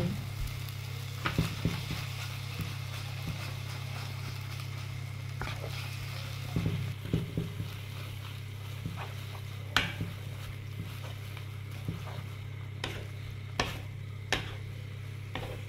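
Wooden spatula stirring and tossing shrimp and glass noodles in a nonstick wok, with a light sizzle of frying and scattered sharp knocks and scrapes of the spatula against the pan. A steady low hum runs underneath.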